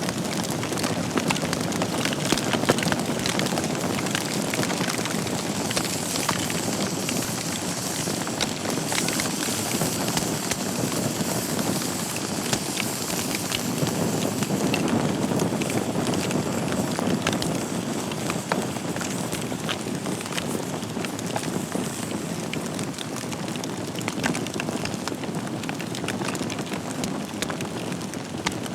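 Wood fire burning in a fireplace: a steady rushing hiss of flames with frequent small crackles and pops throughout.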